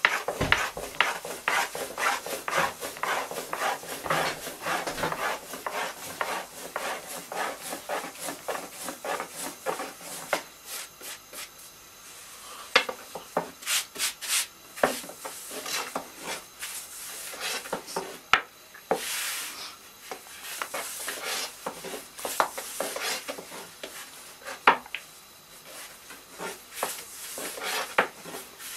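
Long, thin wooden rolling pin (oklava) rolling thin dough on a floured wooden board. Quick rubbing back-and-forth strokes come thick for about the first ten seconds, then thin out, with a few sharp knocks of wood on wood.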